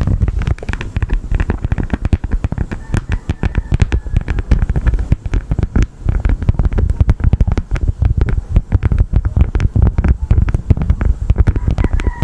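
Honeycomb wax crackling and crunching close to the microphone in a dense, irregular run of sharp clicks.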